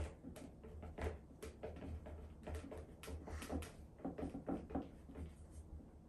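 Marker pen writing on a small whiteboard: a quick string of short scratching strokes and taps.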